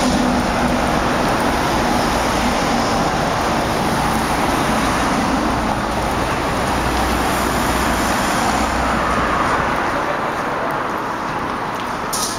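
Steady city street traffic: cars and buses passing in a continuous rumble that eases off about ten seconds in, with a short click near the end.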